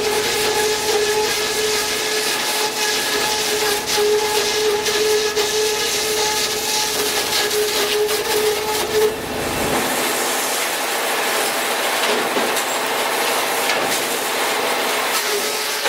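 Chainsaw running at high speed with a steady whine. About nine seconds in, the whine gives way to a rougher, noisier sound, and it returns near the end.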